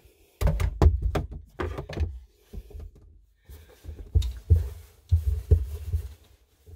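Hand rummaging through clothes in a closet: irregular soft thumps, knocks and rustling, with heavy low bumps from the camera being handled close by.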